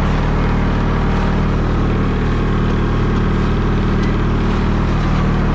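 Skid steer engine running at a steady idle, an even low drone with no change in speed.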